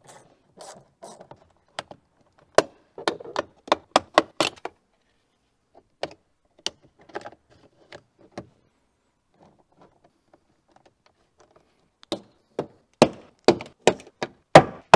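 Sharp plastic clicks and snaps as a BMW M2 door trim panel is taken apart: first covers are pried off with a plastic trim tool, then, after a quiet gap, a quick run of loud snaps as the door panel's retaining clips pop free.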